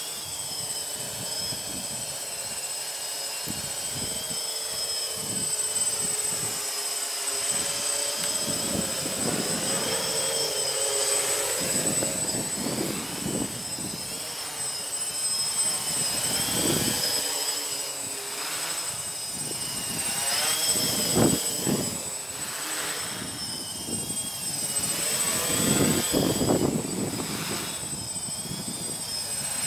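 Electric multirotor drone flying on ArduCopter: a steady high motor and propeller whine whose pitch wavers up and down as the motors correct, with gusts of strong wind buffeting the microphone.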